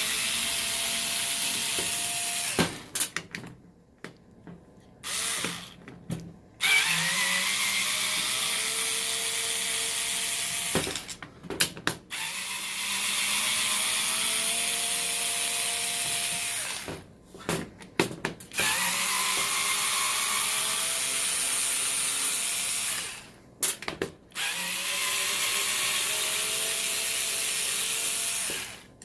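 Cordless power screwdriver with a Torx T20 bit running in about five separate runs of a few seconds each, backing screws out of a plastic tool housing, each run rising slightly in pitch as the screw comes free. Short clicks and knocks in the gaps between runs as the bit is moved to the next screw.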